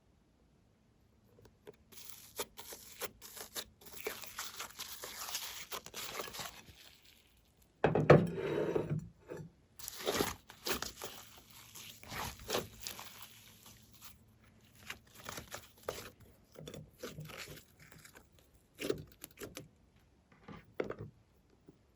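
Slime being worked by hand: a run of crackling, crinkling clicks and sticky pops, loudest in a burst about eight seconds in, after a brief silent start.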